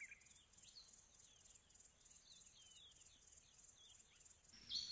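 Faint outdoor nature ambience: small birds chirping in short, quick downward notes over a steady high insect trill. A louder high-pitched sound comes in near the end.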